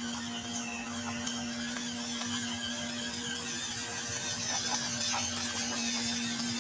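Electric motor and gearbox of a toy RC pickup truck whirring steadily under a constant hum, with a few faint clicks.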